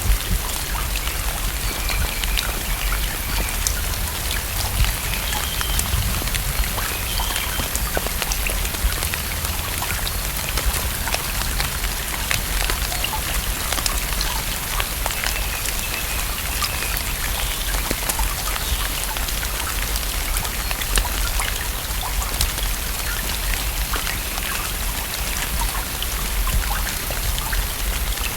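Steady rain falling on a lake's surface: a dense, even patter of countless small drop splashes that never lets up.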